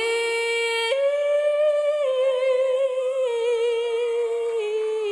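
A woman's solo voice singing one long held high note on the word "I'm". The note steps up about a second in, then eases down in small steps with a slight vibrato.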